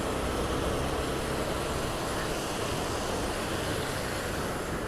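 Honda Twister 250 motorcycle's single-cylinder engine running steadily while riding, mixed with wind and road noise.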